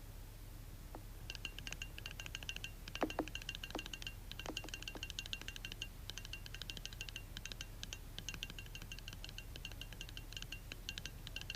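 Rapid, irregular high clicking and ticking that starts about a second in and keeps going, with a few louder knocks around three to five seconds in.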